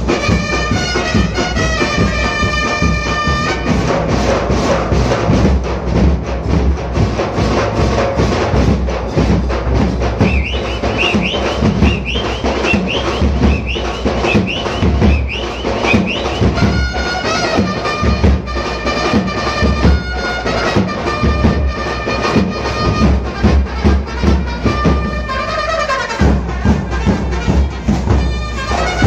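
Brass band playing loudly, with trumpets carrying the melody over heavy, driving drums. Around the middle the lead plays a run of short upward-sliding notes.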